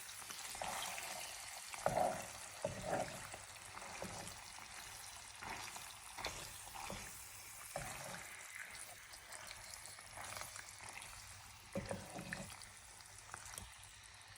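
Carbonara pasta sizzling in a frying pan while being stirred, with scattered knocks and scrapes of the utensil against the pan. The sizzle slowly dies down.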